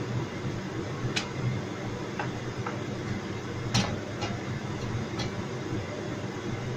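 Steady low rumble of a gas hob burner heating an oiled wok, with several light clicks and knocks as a plastic oil bottle and its cap are handled and set down on the counter, the sharpest a little past the middle.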